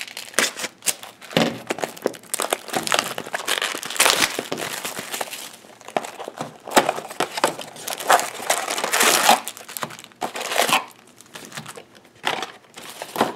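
Plastic packaging of a trading-card booster box crinkling and tearing in a long run of irregular rustles as it is unwrapped and opened.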